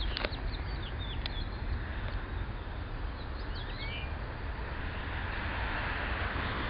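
Small birds chirping in quick, short calls that glide in pitch, the chirps thinning out about four seconds in, over a steady outdoor rumble and hiss. Near the end a broader rush builds up.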